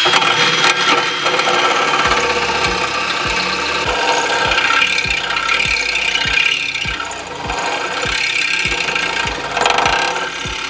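Cordless drill spinning up and running under load, its bit grinding into a broken, rusted bolt in a car's underbody to drill it out; the motor whine holds steady at first, then wavers as the bit bites. Regular low thumps about every half second run underneath from about two seconds in.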